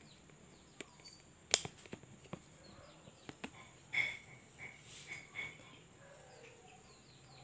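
A few sharp clicks and knocks of things being handled in a small kitchen, the loudest about a second and a half in. A run of short high chirps comes around the middle.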